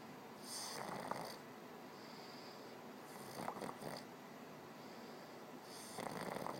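Snoring in slow, regular breaths: three snores in all, about one every two and a half to three seconds, each lasting under a second.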